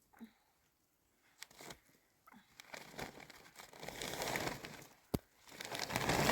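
Crunching, rustling noises that start after about two seconds and swell and fade, with scattered clicks and one sharp click about five seconds in.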